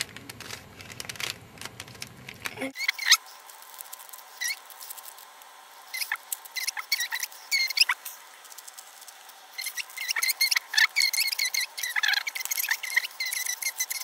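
Plastic Rubik's Cube being twisted by hand: irregular clicks as the layers turn and snap into place, with short high squeaks of plastic rubbing, coming thickest near the end.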